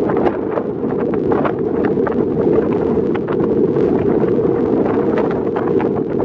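Wind buffeting the camera microphone: a loud, steady low noise with frequent short crackles from the gusts.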